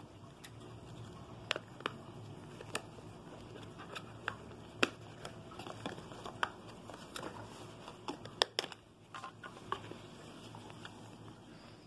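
Irregular sharp plastic clicks and taps from a small mobile phone being handled while its back cover and battery are worked.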